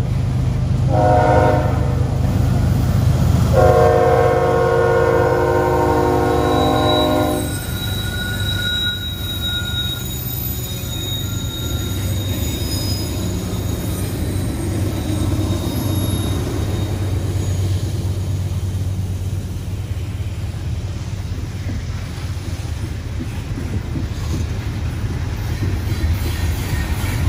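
Diesel locomotive horn on a Norfolk Southern coal train, sounding for a grade crossing: a short blast about a second in, then a long blast of about four seconds. After that the locomotives' engines rumble past and loaded coal hoppers roll by on steel wheels, with a thin wheel squeal for several seconds.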